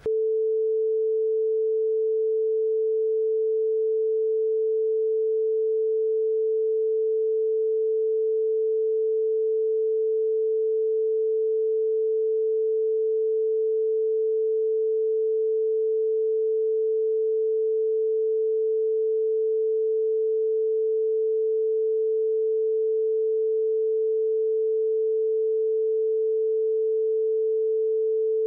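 A single steady mid-pitched beep tone, held at one pitch and level without a break. It cuts in abruptly over the speech: a censor tone blanking out a redacted passage of the recording.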